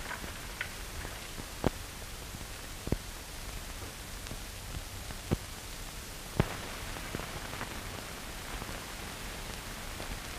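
Steady hiss of an old optical film soundtrack, broken by four sharp clicks spread over the first two-thirds, the last the loudest.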